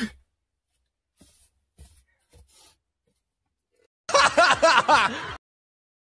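A person's voice: a short vocal outburst of several quick pitched pulses lasting just over a second, starting about four seconds in, after a few faint clicks.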